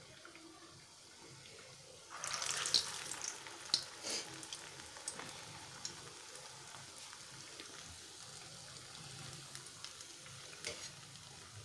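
Dal vada batter going into hot oil in a kadhai about two seconds in: a sudden burst of sizzling and crackling that settles over a few seconds into steady deep-frying sizzle with scattered pops.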